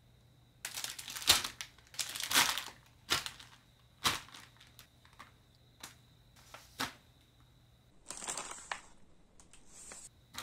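Clear plastic bags holding model-kit sprues and decal sheets crinkling as they are handled, in irregular bursts with short pauses between.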